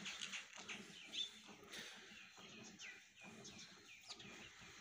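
Small birds chirping, many short downward-sweeping chirps, over faint repeated squirts of a cow being milked by hand into a metal bucket.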